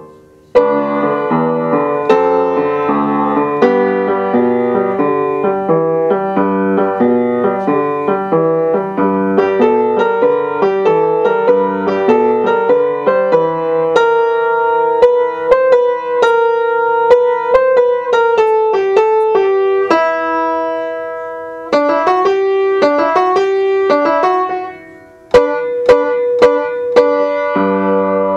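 Upright piano played solo by hand: a lively two-handed tune with a busy, moving bass line. The playing breaks off briefly twice, once just after the start and once about 25 seconds in, then picks straight back up.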